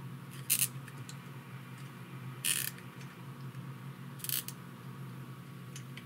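Nylon zip ties being pulled tight through their ratchet heads: three short ratcheting zips, about two seconds apart.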